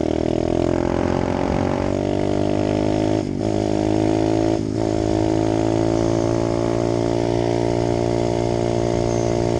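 Apollo 125cc dirt bike's four-stroke single-cylinder engine running under way at fairly steady revs. The sound dips briefly twice, a little over three seconds in and again at about four and a half seconds.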